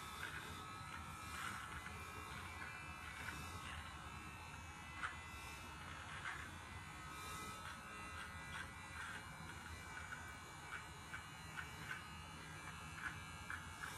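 Manscaped electric trimmer buzzing faintly and steadily as it cuts chin stubble, with small scattered ticks of hair being clipped.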